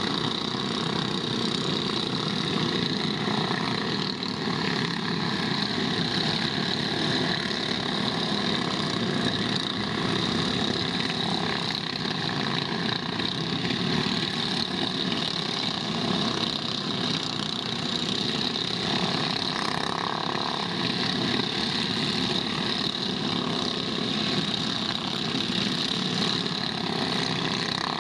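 Small go-kart engines running steadily, an unbroken mechanical drone.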